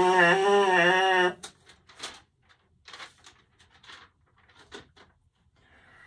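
A held note buzzed on a trombone mouthpiece, its pitch wavering slightly, stopping about a second and a half in; after it only faint clicks and a soft breath.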